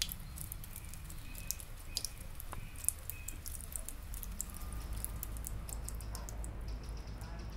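Field-recorded ambience: irregular light clicks and ticks over a low steady rumble, with a few short high squeaks about one to three seconds in.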